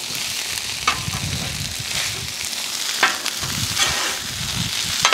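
Fish and brewis with onions sizzling on a Blackstone steel flat-top griddle while a metal bench scraper chops and scrapes through it, a few sharp strokes of the blade on the griddle top standing out from the steady frying hiss.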